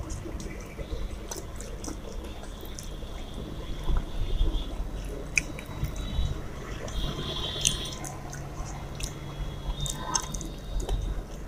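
A hand mixing rice with fish curry on a steel plate: soft wet squishing with scattered light clicks of fingers against the metal.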